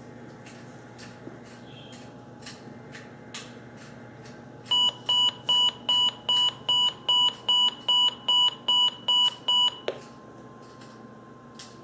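Midland WR-30 weather radio's alarm beeping rapidly, about two and a half beeps a second for some five seconds, set off by a NOAA Weather Radio Required Weekly Test. As the beeping stops, a faint steady tone starts: the broadcast's 1050 Hz warning alarm tone.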